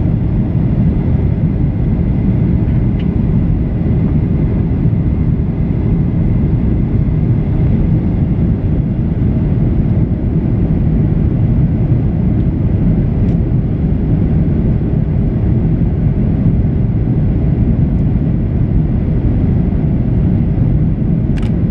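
Steady low cabin noise of a Boeing 737-800, engines and airflow heard from inside the airliner, with a faint whine and a single small click near the end.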